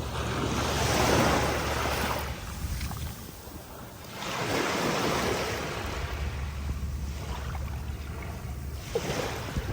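Sea waves breaking and washing up on a beach, the surf swelling and falling about every four seconds, with a low wind rumble on the microphone.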